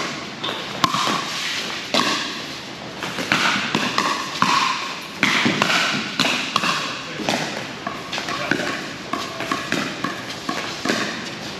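Pickleball paddles striking a hard plastic ball in a rally: a string of sharp pops roughly a second apart, over voices in the hall.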